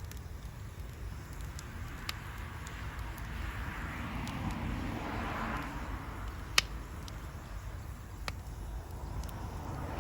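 Wood campfire crackling, with scattered sharp pops, one much louder about two-thirds of the way through, over a steady low rumble and a soft rushing swell in the middle.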